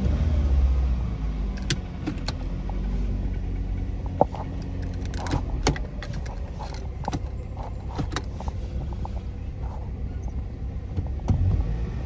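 A 2010 Chevy Cobalt's four-cylinder engine idles steadily, with scattered clicks and clunks from the automatic gear selector being moved. The engine idles in gear while the car does not move: the transmission is dead.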